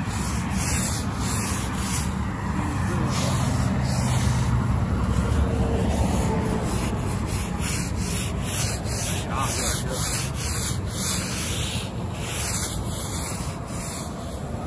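Repeated rubbing, scraping strokes, a cleaning or scrubbing action, over a steady low rumble.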